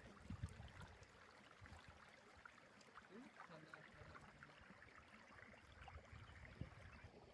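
Near silence: a faint steady hiss with a few soft low bumps.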